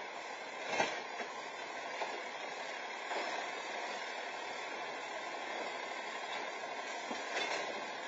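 Garbage truck's engine running steadily while its automated side-loader arm lifts and empties a wheeled trash cart, with clanks and knocks of cart and machinery. The sharpest knock comes about a second in, and more follow near the end as the cart is set back down. Heard through a security camera's microphone.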